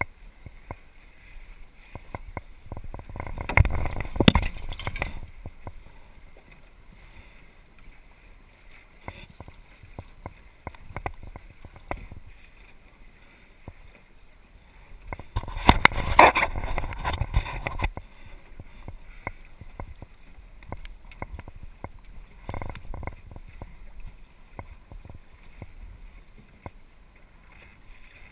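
Water splashing and slapping against the hull of a small sailboat under way, a steady patter of little knocks with two louder surges of splashing, about three seconds in and again about fifteen seconds in.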